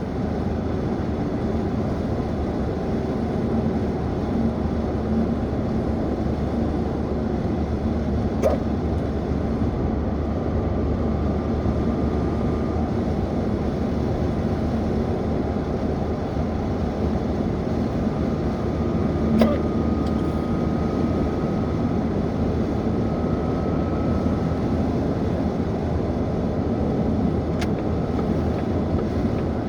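A person's hiccups, two short ones about eight and nineteen seconds in, over a steady low rumble of background noise.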